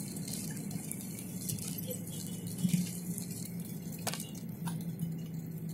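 Jet airliner cabin during the landing rollout, spoilers up: a steady low engine hum with light rattling and clinking of cabin fittings, and a sharp click about four seconds in.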